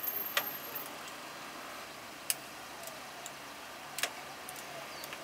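A few sharp clicks and knocks, a quick cluster at the start and then two single ones a couple of seconds apart, over a steady low hum.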